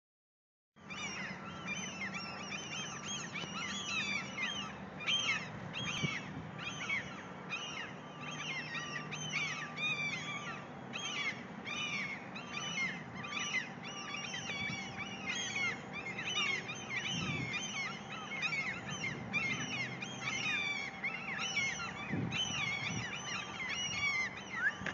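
Many seagulls calling at once, a dense, unbroken stream of short, harsh, downward-sliding calls, the alarm clamour of gulls with a disturbed nest. It starts about a second in.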